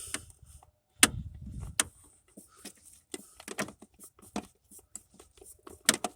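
Irregular small metallic clicks and knocks of hands and tools working to free a distributor cap in the engine bay. The loudest is a sharp knock with a dull thud about a second in, and another near the end.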